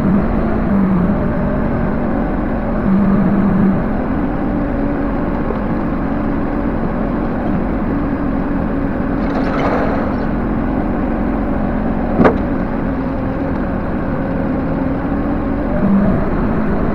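Backhoe engine running steadily, with a short rushing noise near the middle and one sharp click about twelve seconds in.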